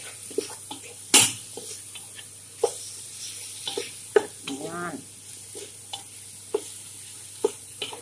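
Wooden spatula knocking and scraping against a nonstick pan while stirring pieces of chicken frying in curry powder, in short irregular clacks with the loudest about a second in, over a faint sizzle.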